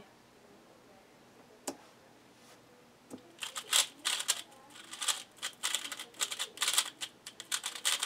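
QiYi Valk 3 speedcube being turned fast in a timed solve: a dense run of rapid plastic clicks and clacks that starts about three and a half seconds in, after a near-quiet stretch with a couple of single clicks.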